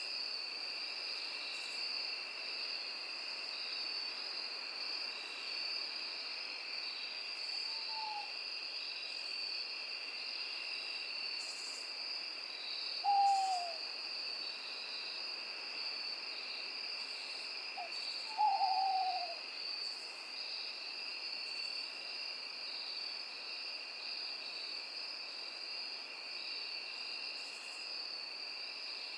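Night forest ambience: a steady high-pitched insect chorus with three short, falling owl hoots several seconds apart, the last two louder.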